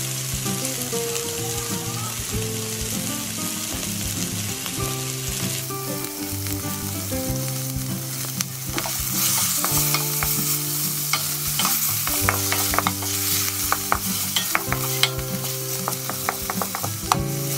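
Diced pork sizzling in hot oil in a stainless steel wok as it renders its fat and browns. From about halfway in, a wooden spatula stirs and scrapes it, with a run of sharp clicks against the pan. Soft background music with held notes plays underneath.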